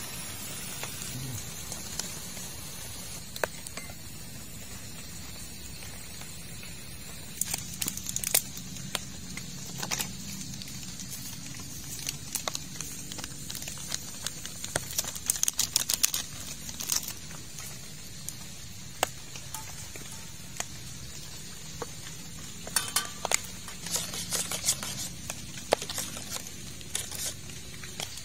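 Clinks and scrapes of a metal spoon against a small stainless steel cup, in several short bursts, as instant coffee is stirred, over a steady hiss.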